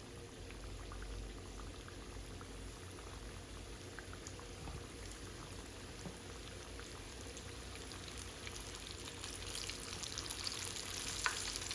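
Floured chicken pieces frying in hot grease in a cast iron skillet: a faint, steady sizzle with scattered pops that grows louder and busier over the last few seconds.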